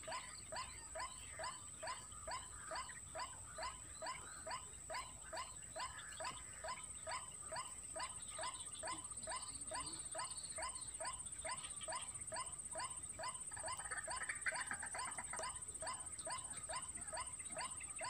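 White-breasted waterhen (ruak-ruak) call played as a bird-trapping lure: a short rising note repeated steadily about two to three times a second.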